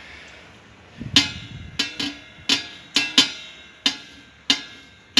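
Sharp metallic clinks, about eight at an uneven pace starting about a second in, each with a short ring: the stainless-steel wire safety guard of a spiral dough mixer knocking and rattling as it is wiped with a cloth.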